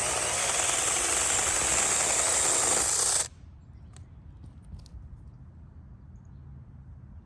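4-inch mini chainsaw running with a high-pitched whine as it cuts through a 2.5-inch branch, then cutting off suddenly about three seconds in. A few faint clicks and knocks follow.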